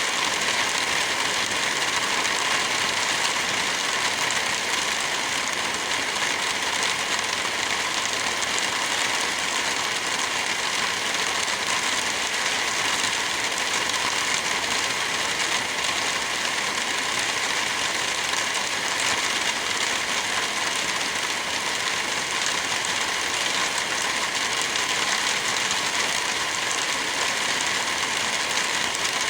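Heavy rain falling steadily: an even, unbroken hiss that does not rise or fall.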